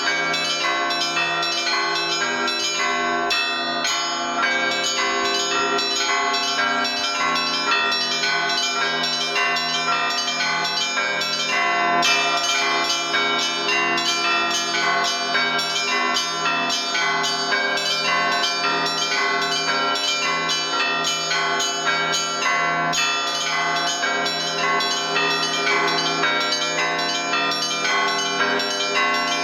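Russian Orthodox church bells rung in an Easter peal by one bell ringer: small bells chime in a fast, continuous pattern over the slower, regular strokes of deeper bells.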